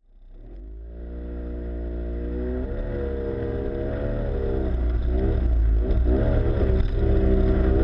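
Outboard motor driving a small RIB, running steadily with a dip in pitch a little under three seconds in and a wavering pitch in the second half. It fades up from silence at the start.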